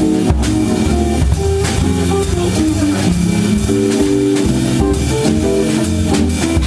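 Live jazz organ trio playing an up-tempo tune: electric jazz guitar and Hammond organ over a low bass line, with a drum kit keeping time on cymbals and drums.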